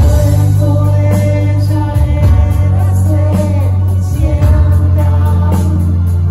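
Live band playing amplified: electric guitar, bass, keyboards and drums, over a strong, steady bass line.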